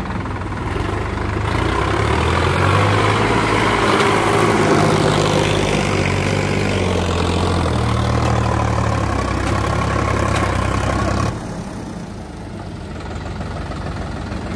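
Sonalika Sikandar DI 50 RX 52 hp tractor's diesel engine working hard at raised revs, hauling a soil-laden trailer through deep mud. The engine note swells about a second and a half in, shifts pitch midway, and drops suddenly to a lower, quieter running about eleven seconds in.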